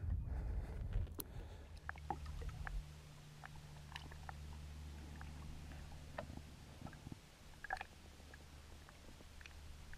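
Lake water lapping and gurgling at the side of a boat as a hand holds a largemouth bass in the water to release it, with scattered small drips and plinks. It is picked up by a camera at the water's surface, and it opens with a heavy low rumble and carries a low steady hum through the middle.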